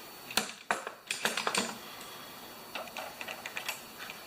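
Hand tools clicking and tapping against metal as a stuck mower bolt is worked loose with vise grips. A quick run of sharp clicks comes in the first second and a half, then fainter ones about three seconds in.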